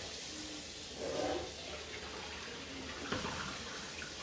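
Kitchen faucet running steadily into the sink while raw chicken drumsticks are rinsed under it.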